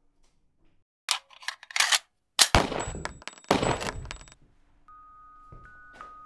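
A few sharp metallic clicks of gun handling, then two loud gunshots about a second apart, each trailing off with reverberation and a high ringing. Near the end, sustained chime-like music notes come in.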